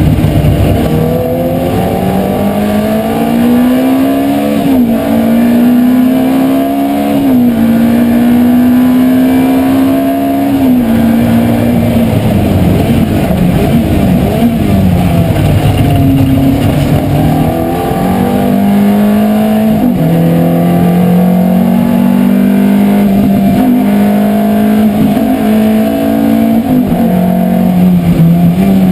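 Ferrari F430's V8 engine heard from inside the cabin, driven hard on a race track. The pitch climbs and drops sharply at each upshift, twice in the first eight seconds, sinks for several seconds through the middle as the car slows, then climbs again through further shifts.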